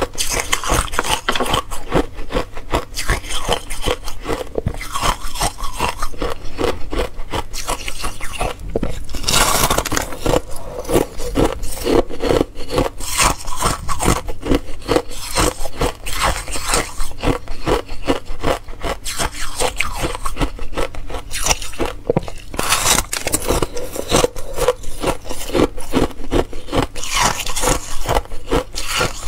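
Close-miked crunching and crackling of a thin sheet of ice being bitten and chewed, a dense run of small cracks with a few sharper snaps along the way.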